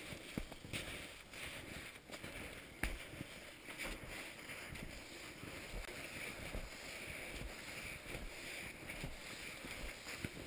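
Boots trudging through deep snow: an uneven crunching shuffle of footsteps, with a couple of sharp knocks from trekking poles.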